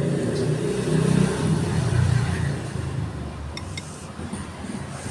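A motor vehicle passing by: a low rumble that swells, peaks and fades away after about three seconds.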